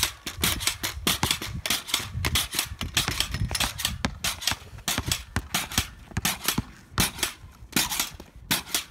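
Large pogo stick bouncing on concrete: a fast, unbroken run of sharp clacks, several a second, as the tip strikes the pavement and the spring takes each landing.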